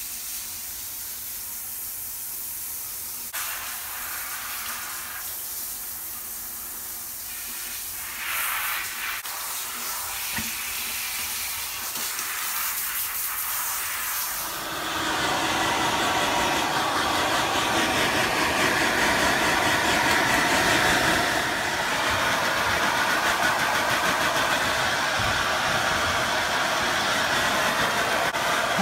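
Handheld shower spraying water onto a wet miniature dachshund and a tiled floor: a steady hiss. About halfway through, a louder, fuller rushing noise takes over.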